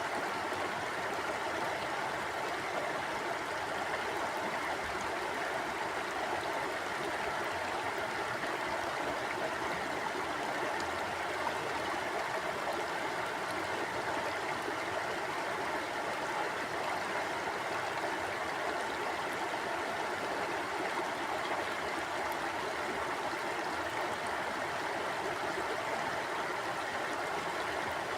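Mountain stream flowing over rocks: a steady, even rush of water with no rises or breaks.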